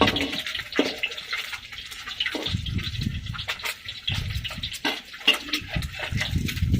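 Hot oil sizzling in a pan of frying eggs, with short clicks and clatter of utensils.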